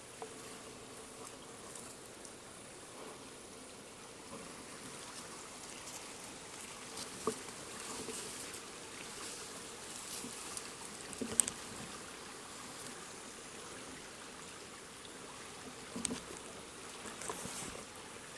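Shallow woodland stream trickling steadily, with a few short clicks; the sharpest comes about eleven seconds in.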